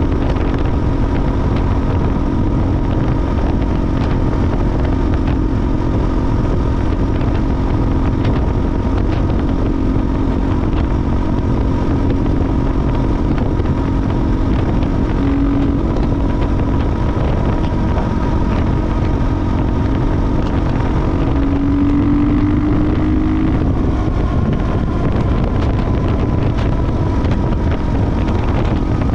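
KTM 450 EXC Six Days' single-cylinder four-stroke engine running steadily under way, with wind noise on the microphone. The engine note rises briefly twice, about halfway through and again about three-quarters through.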